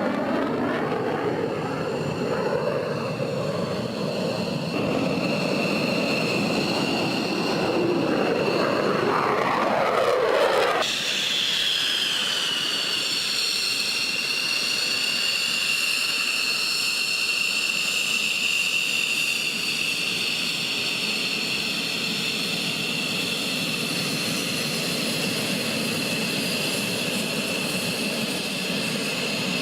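Fighter jet engine noise that sweeps in pitch for the first eleven seconds or so. It changes abruptly to a steady high-pitched jet turbine whine for the rest.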